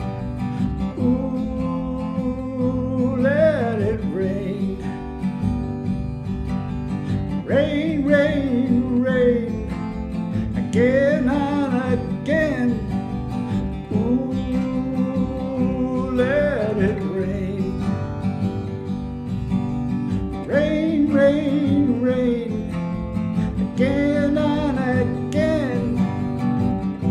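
Song music in an instrumental passage: strummed acoustic guitar chords with a lead melody line that bends up and down in pitch in short phrases.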